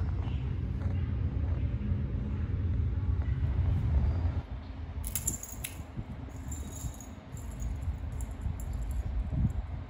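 Light metallic jingling and clicking from a cat wand toy's metal clasps and spring wire as a kitten bats and grabs at it, starting about five seconds in. A low rumble runs through the first half.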